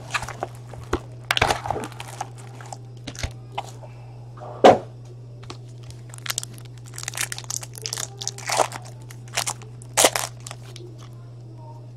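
Foil card-pack wrappers of Panini Elite Draft Picks football crinkling and tearing as the packs are handled and opened by hand, with rustling from the cardboard hobby box. A single thump about five seconds in, over a steady low hum.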